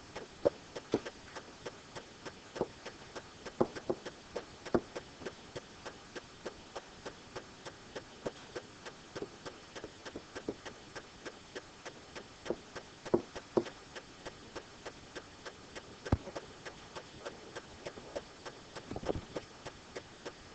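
Pen tapping and clicking against the surface of an interactive whiteboard as words are handwritten: irregular light taps, one to three a second.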